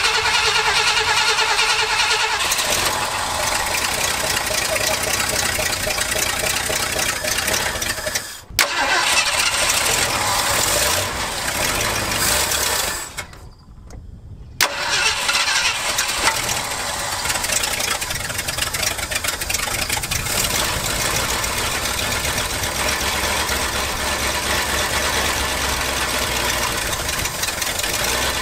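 1968 Ford F-250's big-block V8 (a 352 or 360) being started for the first time after years sitting in a barn, running on a temporary fuel tank through its rebuilt carburetor. The engine runs with a brief break about eight seconds in and a longer drop about halfway through, then picks up again and keeps running.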